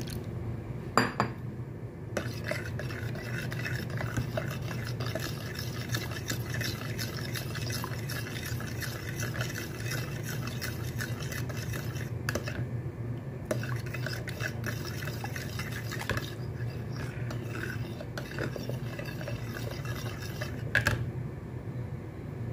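A metal spoon stirring beaten eggs and a seasoned dashi-soy liquid in a bowl, scraping and clinking against the sides. There are two sharper knocks, one about a second in and one near the end, over a steady low hum.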